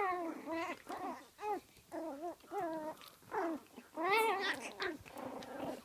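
Chihuahuas playing, one giving a quick run of short whiny yips and grumbles, about two a second, the loudest about four seconds in.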